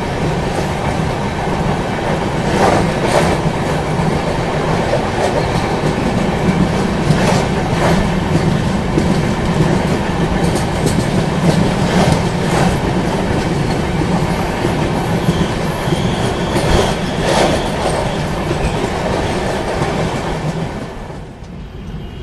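Express train running over a long river bridge, heard from an open coach door: a steady rumble and rush with wheel clacks over rail joints in pairs every few seconds. It turns quieter about a second before the end as the train comes off the bridge.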